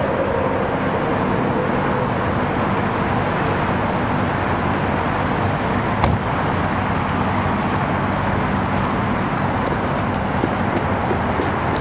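Steady rushing street and traffic noise, with one sharp knock about six seconds in as a car door is pushed shut.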